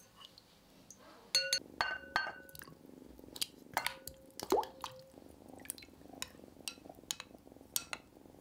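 A spatula knocking against a glass bowl of water, giving a few sharp clinks that ring briefly. Shine Muscat grapes then tumble into the water about four seconds in, splashing and bumping the glass, followed by lighter clinks as they are stirred.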